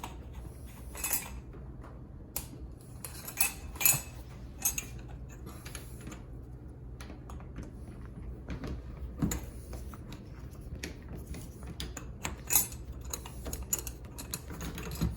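Small metallic clicks and clinks of door knob hardware being handled while its mounting screws are tightened, irregular, with a few louder clinks.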